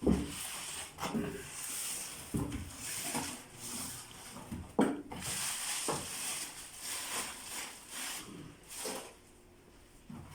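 A new microwave oven being unpacked: cardboard and packaging rustling and scraping, with a few knocks, the sharpest about five seconds in.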